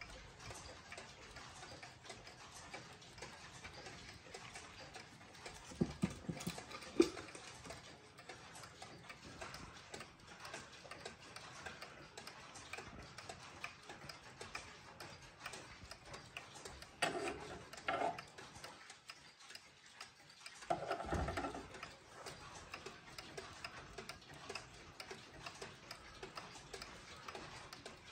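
Kassel 31-day pendulum wall clock ticking steadily. There are a few louder knocks and rubbing sounds, at about six to seven seconds in, twice around seventeen to eighteen seconds, and again at about twenty-one seconds.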